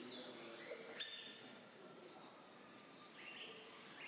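Birds chirping with short, gliding whistled calls. About a second in comes one sharp, ringing note, the loudest sound.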